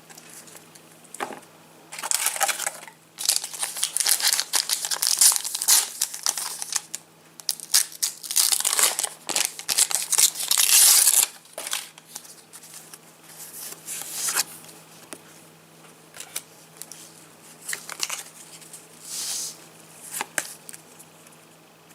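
Trading-card packets being torn open by hand, the wrappers tearing and crinkling. Loud bursts of tearing and rustling through the first half, then lighter clicks of handling and a short rustle near the end.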